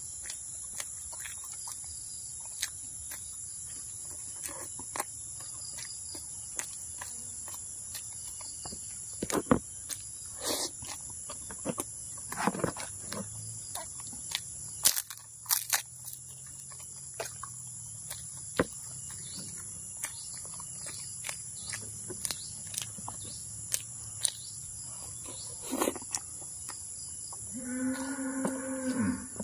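Steady high-pitched insect chorus, with scattered wet chewing and lip-smacking clicks of a man eating a soft stuffed bread roll. Near the end comes a short voiced hum, about a second and a half long.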